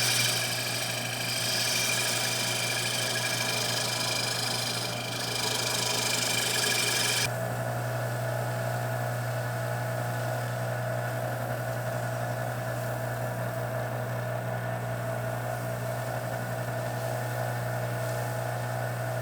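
Small Rikon wood lathe running steadily with a low motor hum and a steady whine. A bright hiss sits over it until about seven seconds in, then cuts off abruptly, leaving a steadier hum with a mid-pitched whine.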